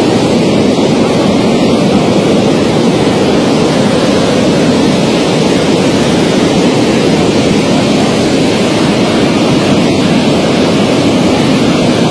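Muddy floodwater in a swollen river in spate, a loud, steady rush of churning water.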